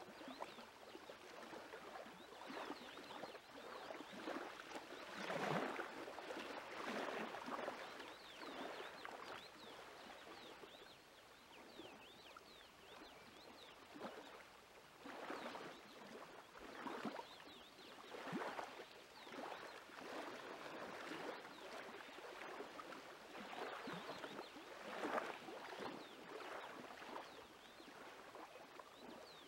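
Small waves lapping on a lakeshore: soft, irregular washes that swell and fade every few seconds.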